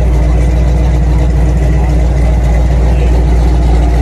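Off-road tow truck's engine running steadily close by, with a deep low rumble.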